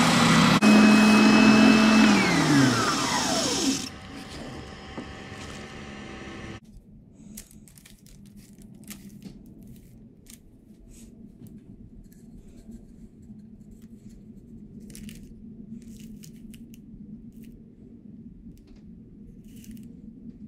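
Benchtop spindle sander running with a steady hum, switched off about two seconds in and winding down in falling pitch. After that, faint taps and rustles of turned wooden rings being handled on paper.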